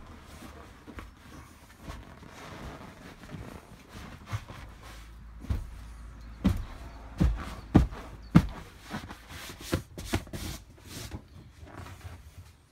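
Upholstered seat cushions being pushed, shifted and pressed into place: soft rustling and shuffling with a series of dull thumps and knocks, the loudest clustered in the middle.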